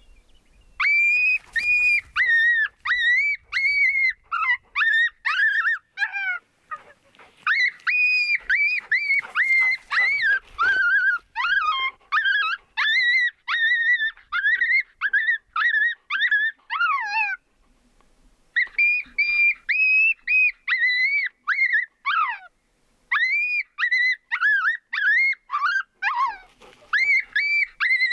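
Canine yelping: a rapid string of short, high-pitched yips, many with a falling tail, several a second, breaking off briefly twice before starting again.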